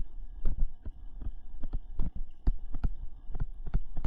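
Stylus tapping and dragging on a tablet screen during handwriting: irregular clicks and low thumps several times a second, over a faint steady whine.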